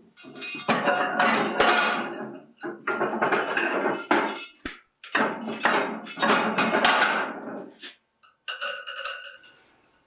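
Metal weight plates being shifted and loaded onto a steel test rig, scraping and clanking against the bar and each other in three long stretches of about two seconds each, with lighter metallic clinks near the end.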